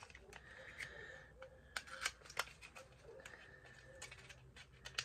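Faint, scattered small clicks and taps of lip gloss packaging being handled and opened.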